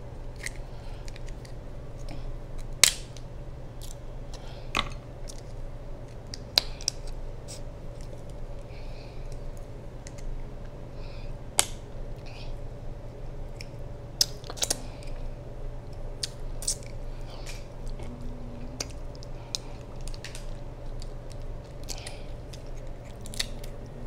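Shellfish shell being picked apart by hand at the mouth: scattered sharp clicks and small cracks, a few much louder than the rest, with quiet chewing and mouth sounds, over a steady low hum.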